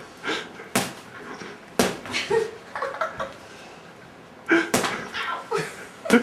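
Boxing gloves punching a hanging heavy bag: four sharp thuds, irregularly spaced, two in the first two seconds and two in the last second and a half.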